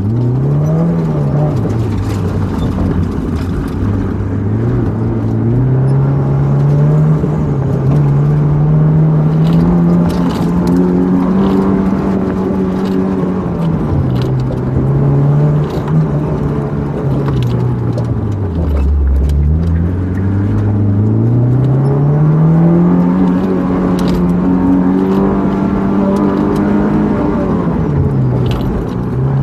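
Sports car engine driven hard through an autocross cone course, heard from inside the open-top cockpit. The revs climb and fall again and again as the driver accelerates and lifts through the slalom. About two-thirds of the way through they drop low, then pull back up.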